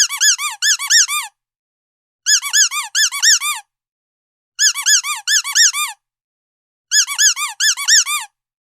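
Squeaky dog toy squeezed in quick runs of about eight high squeaks, each squeak rising then falling in pitch. Four identical runs, one every two seconds or so, with short gaps between.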